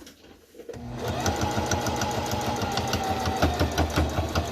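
Domestic single-needle sewing machine stitching steadily, starting up just under a second in. Its needle strokes tick rapidly and evenly over the hum of the motor.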